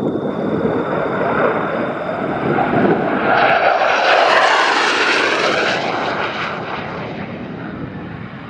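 USAF Thunderbirds F-16 jet flying past, its engine noise swelling to a peak about halfway through, with a sweeping rise and fall of pitch, then fading.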